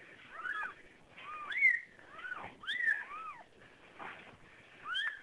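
Newborn kittens mewing: short, high cries that rise and fall in pitch, repeated every half second to a second, with two kittens sometimes crying at once.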